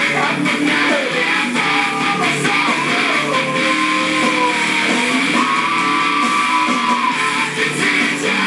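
Loud recorded rock music led by guitar, with a note held for a couple of seconds past the middle.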